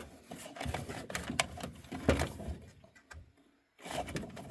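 Irregular clicks, knocks and rustling of hands and tools working on furnace tubing and fittings, with a brief near-silent gap about three and a half seconds in.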